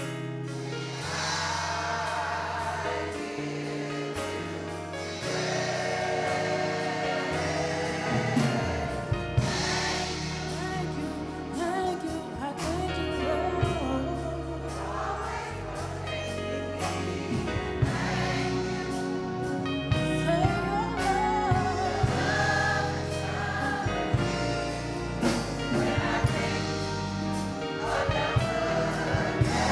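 Church choir singing a gospel song over instrumental accompaniment with sustained bass notes, a beat coming in about eight seconds in.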